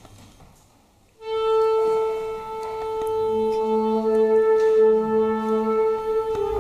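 Flute quartet and B-flat clarinet beginning a piece. After a quiet first second they come in together on long held notes, and a lower held note joins about two seconds later.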